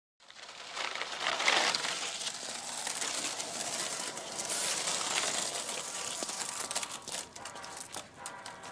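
Skateboard wheels rolling over pavement, a steady rough, gritty rumble that fades in at the start. Near the end a steady, pitched hum comes in underneath it.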